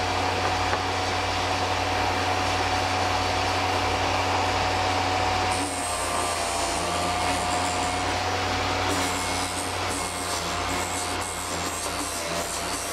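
Electric drill bit sharpener running, its motor humming steadily while a dull twist drill bit is ground against the wheel with a continuous rasping rub. The grinding sound changes about halfway through.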